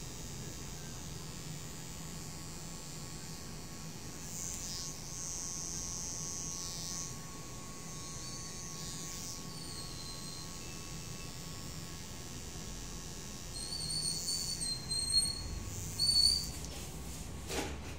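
Electric hair clipper running with a steady low hum. A few short high-pitched chirps come near the end.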